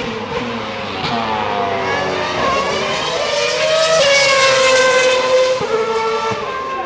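Formula One cars' V8 engines running at high revs, several at once, their pitch rising and falling with a step up about four seconds in.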